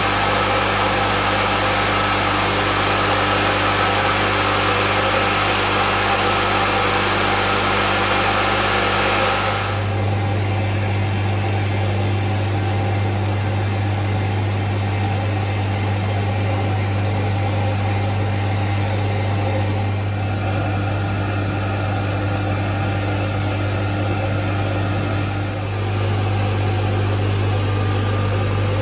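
Electric motor and spinning tooth cutter of a wheel-cutting setup running with a steady hum while teeth are cut in a brass chronometer wheel. The sound shifts about ten seconds in, and one tone drops out near the end.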